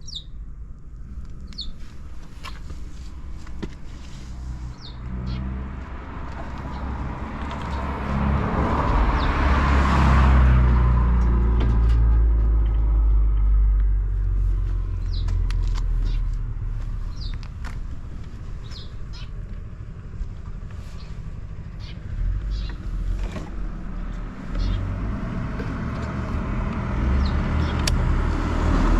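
Buell XB12SCG Lightning's air-cooled 1203 cc V-twin running, its engine speed rising about a third of the way in and easing back, then rising again near the end, with no unusual mechanical noises. Small birds chirp now and then over it.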